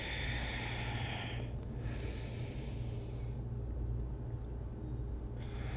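A woman breathing slowly in and out through the nose, heard as soft rushes of breath with a pause of about two seconds near the end, over a steady low hum.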